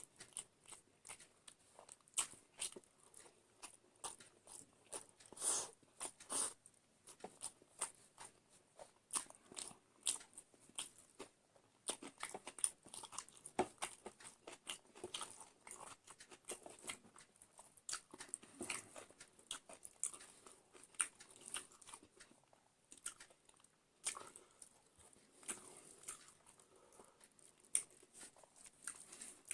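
Close-up eating sounds: a person biting and chewing food, with many irregular crisp crunches, several a second.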